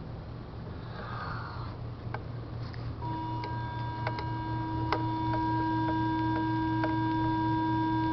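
Intoxilyzer 8000 breath-alcohol tester sounding its steady blow tone, which starts about three seconds in and holds: the sign that breath is flowing into the mouthpiece just strongly enough to be sampled. A few faint clicks sound over it, and a low steady hum lies underneath.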